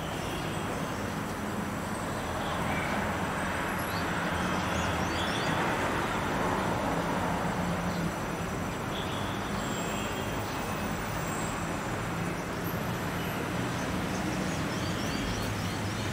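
Steady background vehicle rumble with a low engine hum, swelling a little a few seconds in and easing off again, with a few faint high chirps.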